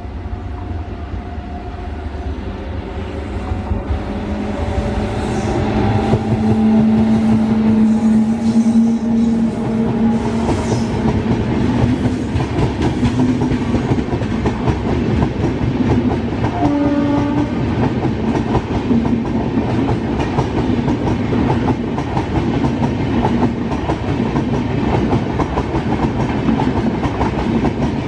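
WAP-7 electric locomotive passing, growing louder over the first six seconds with sliding humming tones. It is followed by a rake of LHB coaches rolling by with a steady wheel rumble and clickety-clack over the rail joints. A short horn blast sounds about 17 seconds in.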